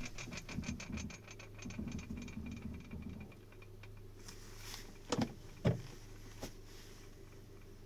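Renault Duster with a knocking noise of unknown cause: a fast ticking, about nine clicks a second, for about three seconds over a steady low hum, then two loud knocks half a second apart and a fainter third one.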